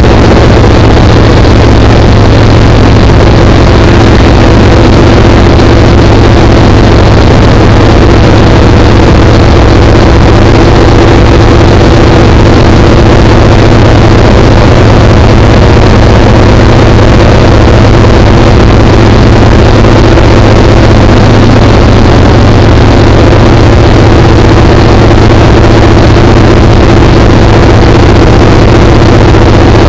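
Steady, loud drone of a jump aircraft's engine heard from inside the cabin in flight: a constant low hum over an even rushing noise.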